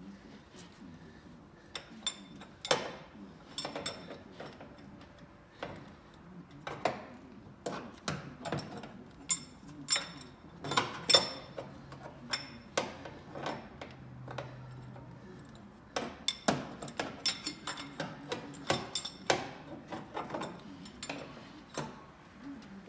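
Wrench and hand tools clinking and tapping on metal in irregular bursts, working at a hard-to-reach starter bolt.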